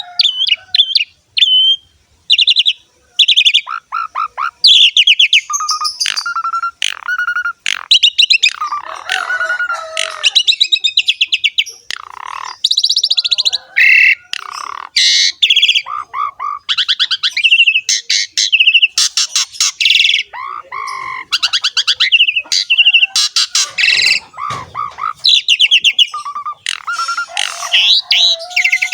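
Javan pied starling (jalak suren) singing continuously: a fast, varied song of rattling trills, short clear whistles and harsher chattering notes with hardly a pause.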